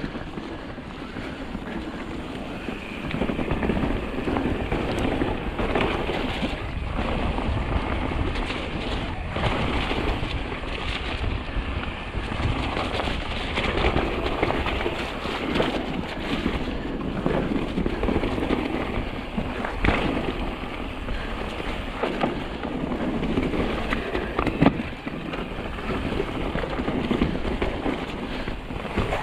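Mountain bike ridden down a trail: a continuous rough rumble of tyres over dirt and stones, rising and falling, with wind on the microphone. A couple of sharp knocks from the bike stand out, the loudest near the end.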